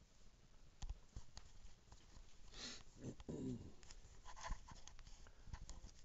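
Handling noise as the camera is picked up and moved: scattered clicks and knocks, a short rustle about two and a half seconds in, and a brief squeak just after it.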